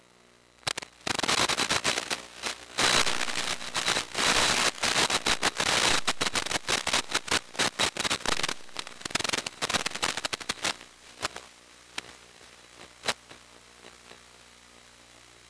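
Dense crackling static from an analog FPV video link's audio, starting about a second in, thinning to scattered clicks after about eight seconds and dying out near the end: the sign of radio interference or the link breaking up.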